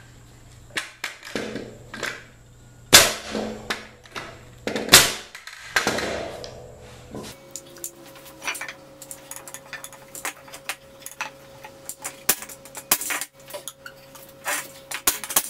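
Pneumatic framing nailer firing nails into 2x4 boards: two loud shots about three and five seconds in, among smaller knocks of the wood. Lighter clicks and knocks follow in the second half.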